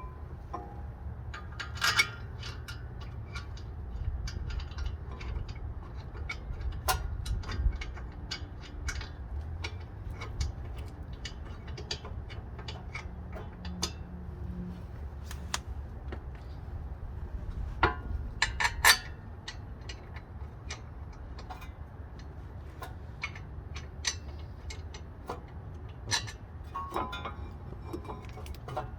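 Hand ratchet wrench clicking in irregular runs as brake assembly bolts are threaded in and tightened, with scattered sharp metal clinks from tools and parts, loudest about two seconds in and again near the middle.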